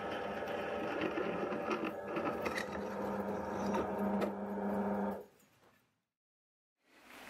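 Benchtop drill press running with a twist bit cutting into a stainless steel plate: a steady motor hum with scraping and clicking from the cut. About five seconds in the sound cuts off abruptly to silence.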